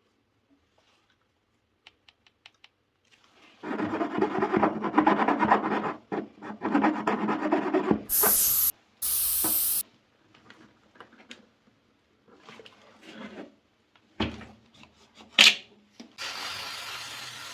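Tire puncture being reamed with a rasp tool: a dense rubbing and rasping that runs for about four seconds in two stretches. Two short bursts of hiss follow, then scattered knocks, and a steadier hiss near the end.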